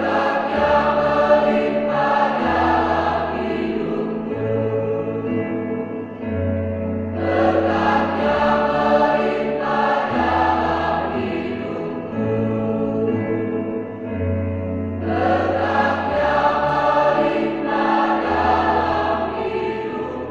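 A large mixed choir singing in harmony, in phrases that swell and ease back about every seven or eight seconds, over held low notes.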